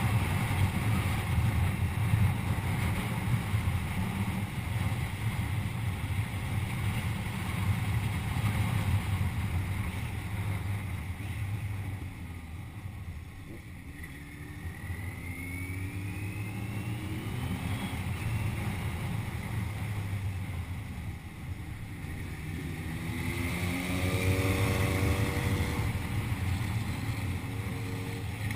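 Steady rush of a waterfall with wind buffeting the microphone, heavy in the low end. A few rising pitched sounds come through around the middle and again near the end.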